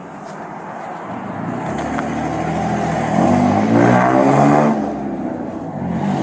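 A car engine accelerating, building up from about a second and a half in and loudest about four seconds in.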